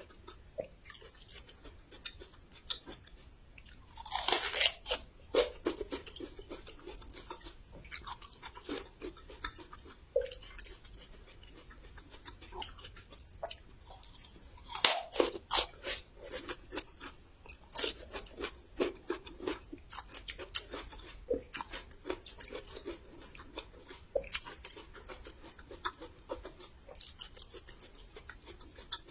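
A person biting into and chewing raw young ginger with crisp crunches, the loudest bites about four seconds and fifteen seconds in.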